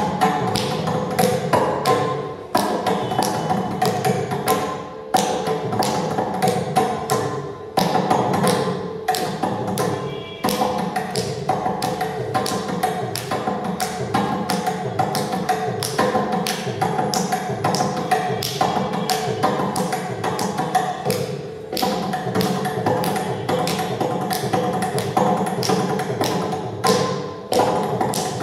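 Mridangam played solo in rapid, dense strokes over a steady sruti drone, with a few brief dips between phrases. This is a tani avartanam in Adi tala.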